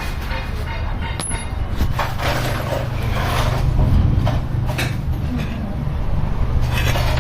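A steady low mechanical drone that grows stronger about two seconds in, with scattered metallic knocks and clicks over it.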